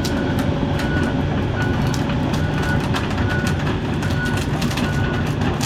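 John Deere 135G excavator moving under power: a steady diesel drone with metallic clanking from the tracks, and the travel alarm giving a short high beep about every 0.8 seconds.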